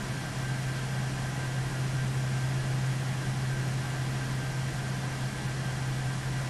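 Steady low hum of running machinery or fans with a constant hiss and a thin high tone, unchanging throughout.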